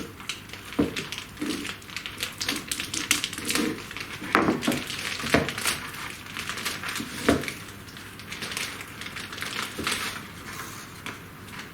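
Packing material being pulled off by hand: plastic crinkling and rustling with irregular clicks and clacks, and a few sharper knocks about four and a half, five and a half and seven seconds in.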